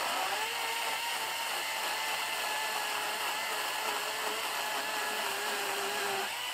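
Chainsaw running at full speed, ripping lengthwise through a cedar log, its pitch wavering slightly under the load of the cut. Near the end the throttle is let off and the pitch starts to fall.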